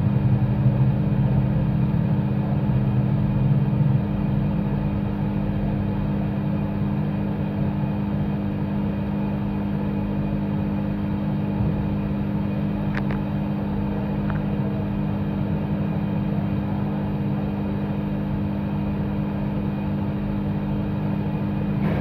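Steady low machine hum with a low rumble under it, a little louder for the first four seconds, and one faint click about thirteen seconds in.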